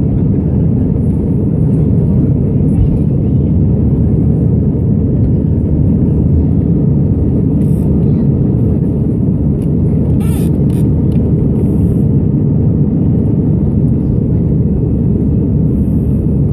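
Airliner cabin noise during the climb just after takeoff: a loud, steady, deep rumble of the jet engines and airflow heard from inside the cabin.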